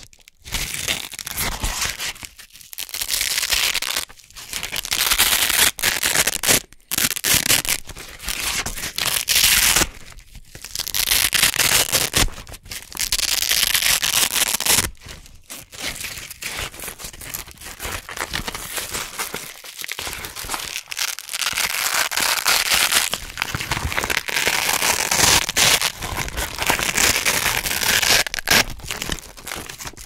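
Velcro hook-and-loop circles, orange hook side and red loop side, being peeled apart close to the microphone: a crunchy ripping rasp, repeated many times as they are pulled apart and pressed back together, with short pauses between pulls.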